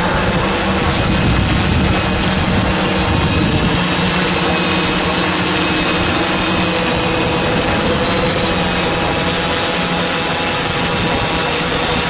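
A drone's motors and propellers droning steadily in flight, a steady whine of several tones over a rushing noise; the low rumble underneath drops away about four seconds in.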